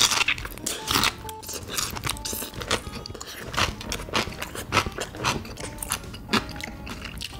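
Close-up crunching and chewing of stuffed cucumber kimchi (oi-sobagi): a run of crisp, irregular bites into the raw cucumber.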